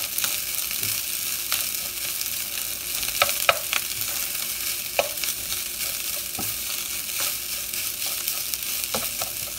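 Garlic fried rice sizzling in oil in a hot wok as it is stirred and tossed with a spatula, with occasional sharp taps and scrapes of the spatula against the pan.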